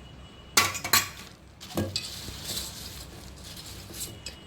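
A spoon clinking and scraping in a pan as roasted peanuts go in and are stirred through puffed rice. Two sharp clinks about half a second apart are the loudest sounds, followed by softer scraping and rustling.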